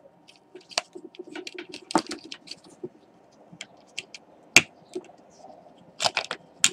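Scattered plastic clicks and light knocks as a laptop adapter's circuit board is pushed down into its black plastic case, with one sharper click about four and a half seconds in and a quick run of clicks near the end.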